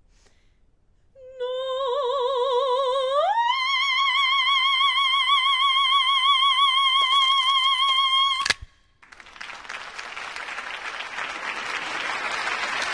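A female opera singer holds a high note with wide vibrato, slides up about an octave and holds it. The note is cut off by a single sharp crack, a pistachio shell shattering from the voice. Applause follows, swelling toward the end.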